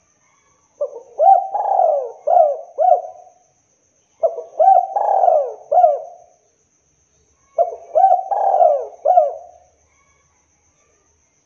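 Spotted dove (tekukur) cooing: three phrases of several short, hooked coos each, about three seconds apart.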